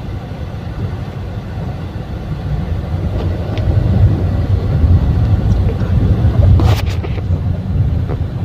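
Honda Brio RS on the move, heard inside the cabin: a steady low road rumble that grows louder about a third of the way in, with a few sharp knocks, the strongest near the end. The owner puts the knocking down to the engine support and the suspension.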